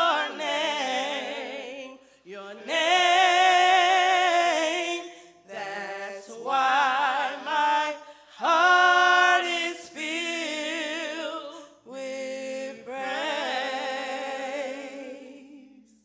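Church praise-team vocalists singing a cappella, with no instruments: long held notes with a wide vibrato, sung in about five phrases with short breaks between them.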